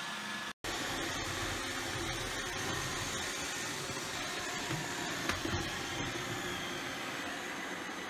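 iRobot Roomba robot vacuum running: the steady whir of its vacuum motor and brushes as it drives across the floor, broken by a short dropout about half a second in and a few faint knocks later on.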